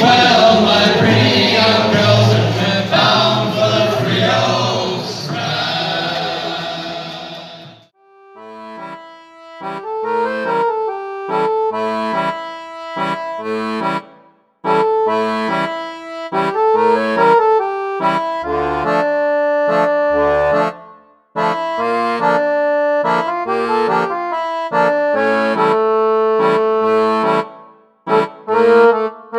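Group singing over heavy wind noise that cuts off about eight seconds in, followed by a solo accordion tune played in short phrases with brief gaps between them.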